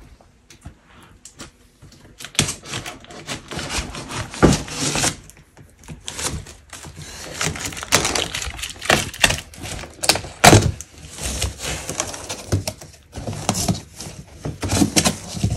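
Scissors cutting into a large cardboard box, with cardboard crackling and rustling and a run of quick clicks as it is cut and handled, starting about two seconds in, and a couple of louder knocks against the box.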